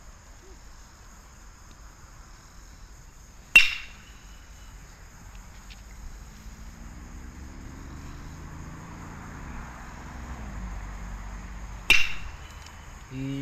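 Baseball bat hitting pitched balls during batting practice: two sharp cracks, each with a brief ring, one about three and a half seconds in and one near the end.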